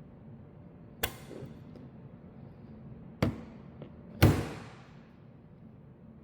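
Three sharp thumps: one about a second in, one about two seconds later and a louder one a second after that, which rings on briefly.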